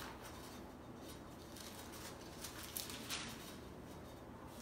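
Faint rustling of Bible pages and paper being handled, with a few soft ticks a little past the middle, over quiet room tone.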